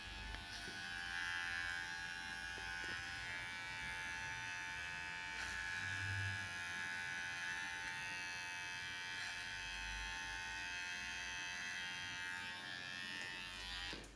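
Electric hair trimmer buzzing steadily as it cuts hair at the back of the neck and around the ear; it stops just before the end.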